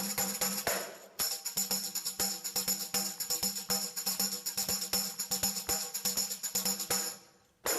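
A tambourine played in a quick, even rhythm of strikes with its jingles ringing, over a light musical backing. It breaks off briefly about a second in and stops near the end.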